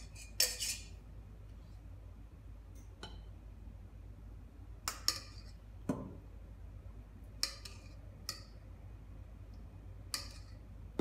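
A metal spoon scraping and clinking against a stainless steel pot as wet grain filling is scooped out, about seven or eight separate sharp clinks, the loudest near the start.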